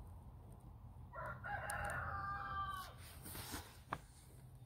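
A rooster crowing once, a single held call of nearly two seconds about a second in. It is followed by a brief rustle and a sharp click.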